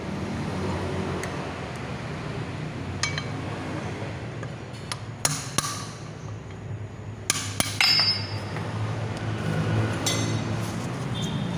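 A metal tool knocking and clinking against an alloy wheel's centre bore to get the old centering ring out: a scattering of sharp metallic knocks, the loudest in the middle, a couple of them ringing briefly.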